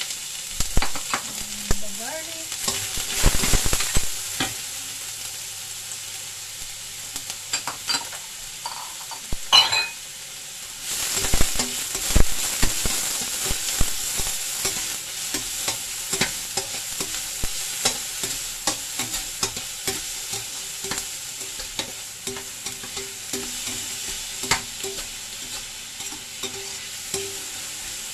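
Chopped onions and ginger sizzling in hot oil in a stainless steel wok, with a metal spatula scraping and clicking against the pan as they are stirred.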